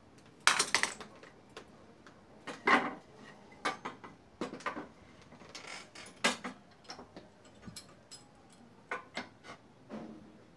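Irregular clicks, knocks and short scrapes of tools and a wooden board being handled and clamped on a workbench, the loudest a scrape about half a second in.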